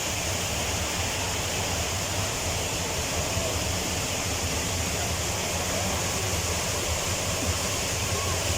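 Man-made waterfall: water falling and splashing in a steady, unbroken rush.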